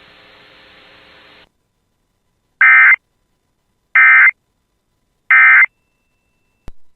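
Emergency Alert System end-of-message data tones: three short bursts of warbling digital SAME code, each under half a second and about a second and a half apart, marking the end of the alert. Faint hiss comes before them and a click near the end.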